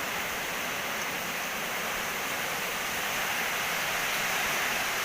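Steady, even rushing noise with no distinct events, like water, rain or wind.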